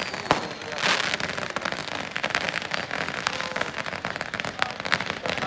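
Aerial fireworks crackling and popping overhead: a rapid, irregular string of sharp pops, with a louder burst about a second in.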